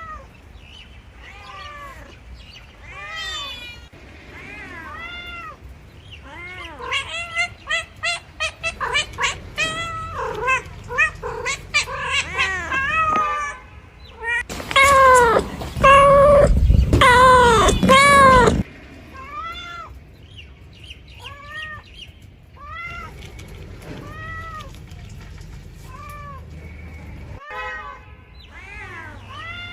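A cat meowing over and over, each call rising and falling in pitch. A quick run of short meows comes about a third of the way in, and the loudest, longest calls fall near the middle.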